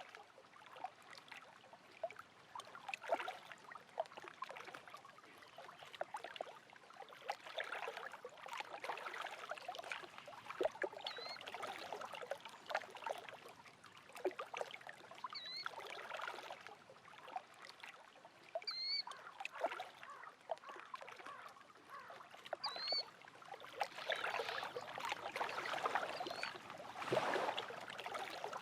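Small lake waves lapping and splashing against the shore in irregular swells, with a bird giving four short, high chirps spaced a few seconds apart.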